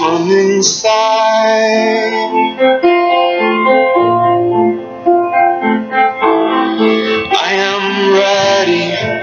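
Piano-led music with a singing voice, steady sustained notes.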